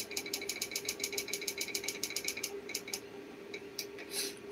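A fast run of short, sharp clicks, about seven a second, for the first two and a half seconds, then a few scattered clicks, as the projector's file list is scrolled. A steady low hum from the running projector continues underneath.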